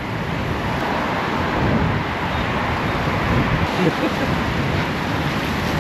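Gusty storm wind buffeting the microphone in a steady rushing rumble, mixed with road traffic passing on a wide street.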